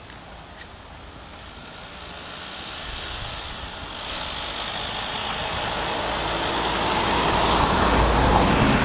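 A road vehicle passing: a steady rushing and rumbling noise that swells gradually over several seconds and is loudest near the end. A few faint hoof clicks are heard at the start.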